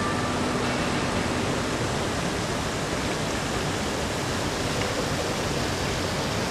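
Steady, even rushing noise with no distinct events, and a faint low hum that fades out within the first two seconds.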